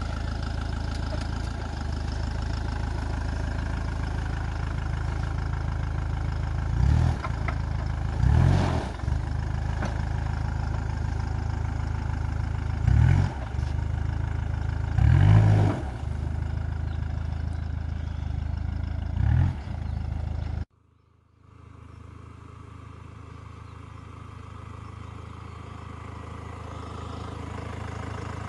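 Hyundai Terracan SUV's engine running at low speed off-road, with five short revs as it crawls over rough ground. About two-thirds of the way through it drops abruptly to a fainter, more distant engine sound that slowly grows louder.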